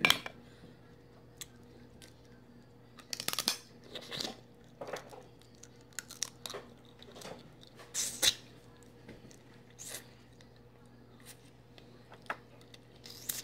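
Close-up chewing and lip-smacking on cooked Dungeness crab meat, with a few crunches, heard as irregular short smacks and clicks spread through the stretch.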